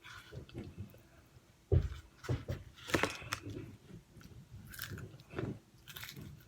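Close-up chewing and biting into crunchy fried chicken, a run of uneven crisp crunches. There is a heavy low thump a little under two seconds in, and the loudest crunch comes about three seconds in.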